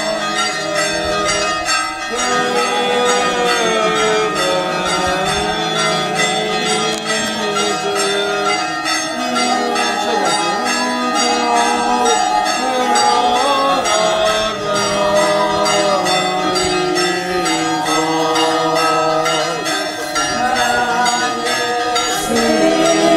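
Church bells ringing continuously in rapid, repeated strokes to mark a Corpus Christi procession setting out, with the people in the procession singing a hymn along with them.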